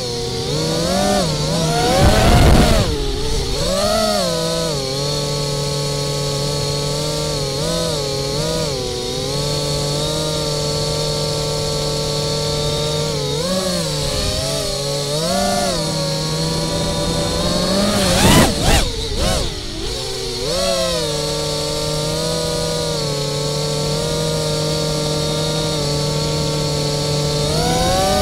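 Brushless 2207 motors and propellers of an FPV quadcopter whining, heard from the camera on board. The pitch rises and falls with the throttle, holding steady through longer stretches, with two short rushes of noise about two seconds in and again about eighteen seconds in.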